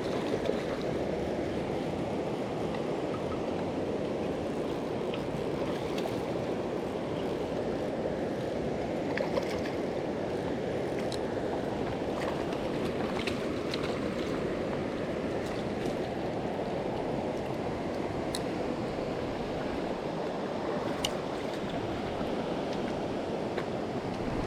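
River water rushing steadily, with a few faint scattered ticks.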